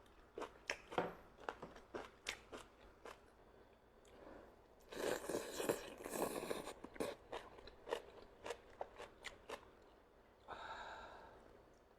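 Close-up chewing and crunching of steamed chicken: quick wet clicks and bites, with a louder, denser run of crunching about five seconds in.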